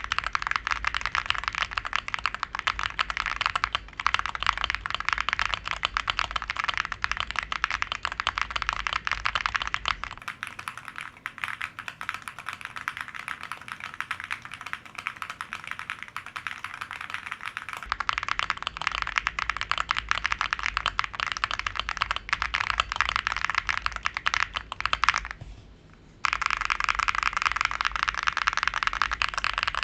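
Fast continuous typing on a Bilibili World 65 mechanical keyboard: a dense stream of key clacks. The sound turns thinner for a stretch in the middle and stops briefly about 26 seconds in.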